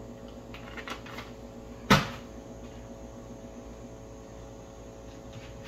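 A single sharp knock about two seconds in as a grocery item is set down in a pantry with wire shelving, over a steady low background hum.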